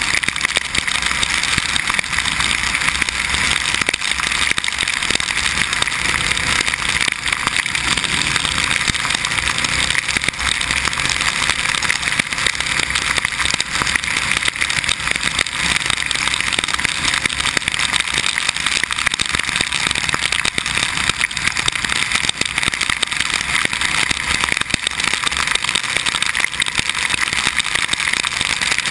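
Steady rush of wind and road spray on a motorcycle-mounted camera riding a highway in heavy rain, with a dense ticking of raindrops hitting the camera and the motorcycle's engine running underneath.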